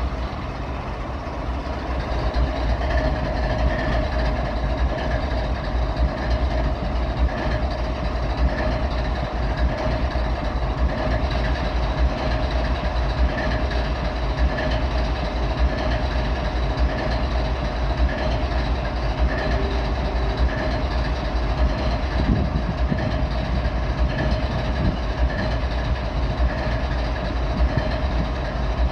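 GE ES44AC diesel-electric locomotive idling: its GEVO-12 V12 diesel engine runs with a steady low rumble and a steady whine over it.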